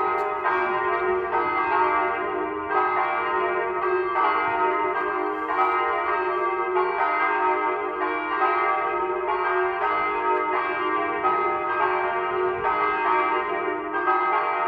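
Church bells ringing, a new stroke about once a second, each stroke overlapping the ringing of the last so a steady hum carries through.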